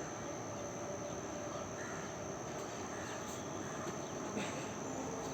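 Steady, continuous high-pitched insect chirring over an even background hiss, with no horn or train yet.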